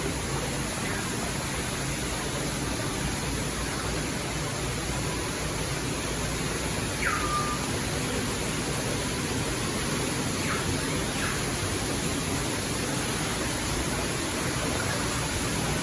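Steady, even rushing background noise with no clear single source, with a few faint, brief high chirps or squeaks about halfway through and near the end.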